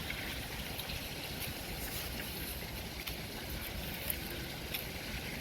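Steady low rumble of wind buffeting the microphone outdoors, with a few faint ticks.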